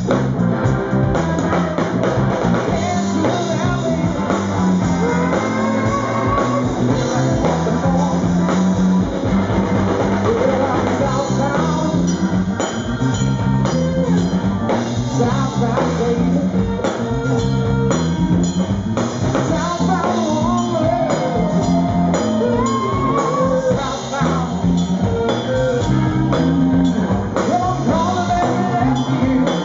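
Live rock band playing: electric guitar, bass guitar and drum kit, with a man singing.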